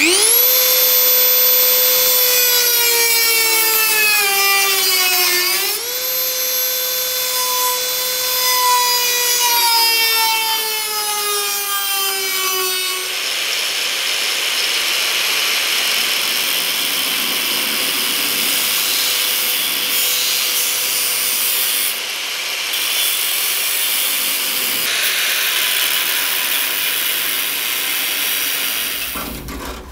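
A handheld high-speed rotary tool with a small cutting wheel whines as it cuts into the rusted sheet steel of the door's hinge mount. Its pitch sags as the wheel bites, jumps back up once about six seconds in, then sags again. From about halfway, an angle grinder's cut-off disc cuts through the steel with a loud rasping hiss, cutting out the rusted section, and stops just before the end.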